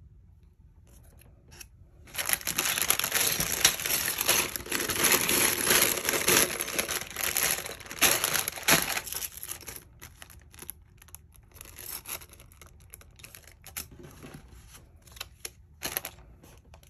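Clear plastic Lego parts bags crinkling as they are handled. The crinkling is loud and continuous for about eight seconds, starting about two seconds in, then turns to fainter, scattered crinkles.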